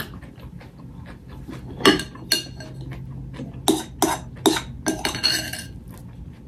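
Metal spoon clinking and scraping against a ceramic bowl as food is scooped: a string of short, sharp clinks that comes thicker from about two seconds in.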